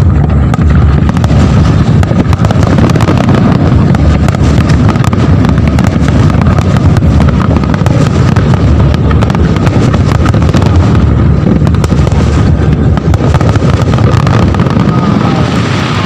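Fireworks display going off in a loud, continuous barrage of booms and crackling bursts.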